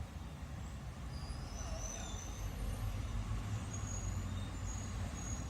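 Steady low rumble with a hiss, and a few faint, brief high-pitched squeals.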